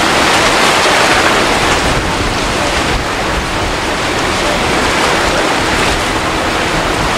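Steady rush of churning water and breaking waves in a rough tidal inlet.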